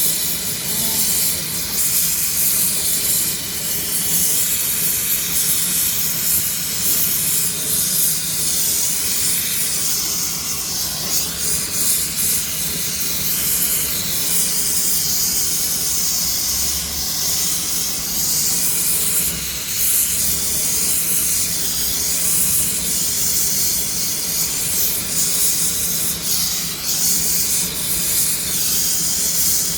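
Electric arc welding on galvanized sheet steel: the arc crackling and hissing steadily and without a break.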